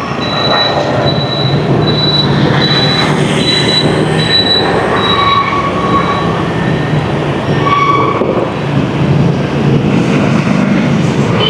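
Dense street traffic heard from a moving motorbike: a steady engine drone under the noise of surrounding motorbikes and cars. A high beep repeats about twice a second through roughly the first six seconds, and a few short horn honks sound.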